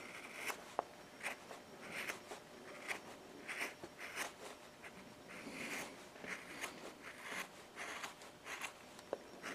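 A small hand carving tool shaves wood in short scraping cuts, about two a second, with an occasional sharp tick as the blade catches.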